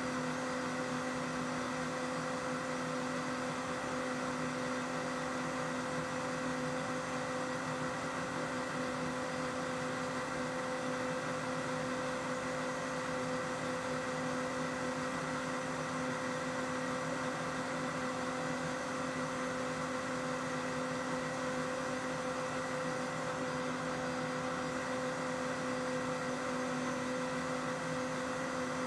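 Cleanblend 1800-watt commercial blender's motor running at a steady high speed, blending a jar of soup: a constant whirring hum with a steady whine.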